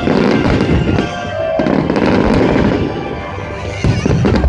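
Fireworks display: aerial shells bursting and crackling densely, with a loud new burst near the end, over music.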